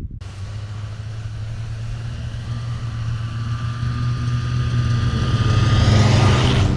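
A motor running with a steady low hum that grows louder towards the end. A thin high whine sits over it through the middle.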